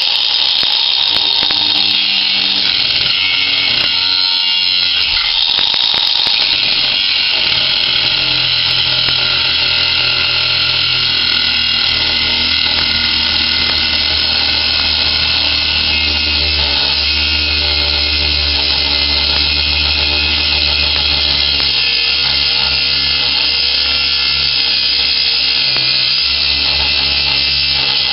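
Ryobi One+ 18-volt cordless angle grinder (P420) running steadily with a cut-off wheel, cutting through steel with a continuous high whine and a grinding rasp; its pitch shifts as the wheel bears into the metal, and it holds speed well on a freshly charged battery.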